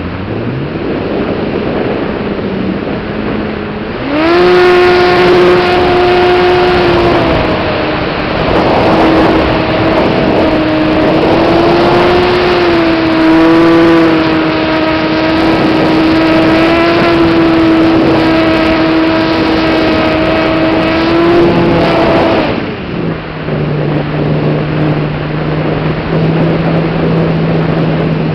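Model Yak aerobatic plane's motor and propeller heard from onboard over wind rush. The motor goes to high power with a rising pitch about four seconds in, holds there with a slightly wavering tone through the manoeuvres, then throttles back to a lower drone a few seconds before the end.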